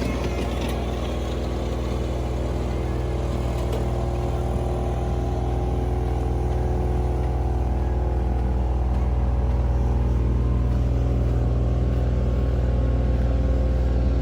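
A vehicle motor running steadily: a constant hum with a steady pitch, growing slightly louder toward the end.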